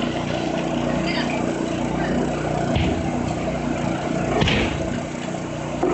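Fireworks bursting over a steady low hum: two short bangs, about three seconds in and again about a second and a half later.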